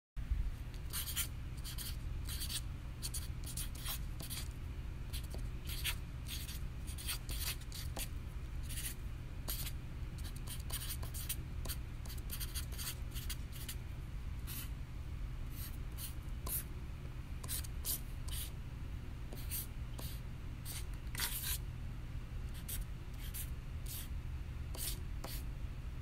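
Crayola felt-tip marker drawn across paper in short strokes, about two a second and irregularly spaced, each a brief scratchy swipe of the tip. A steady low hum runs underneath.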